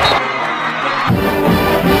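Brass-led orchestral intro theme music, which comes in fully about a second in after a brief noisy swell.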